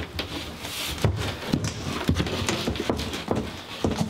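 Irregular knocks and thuds, about two a second, as a sheet of Wonderboard Lite cement backer board is handled and set in place against wood studs on a shower pan.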